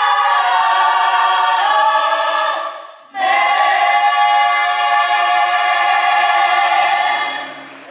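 Choir singing a cappella in long held chords. One phrase dies away about three seconds in, the next starts right after, and it fades out near the end.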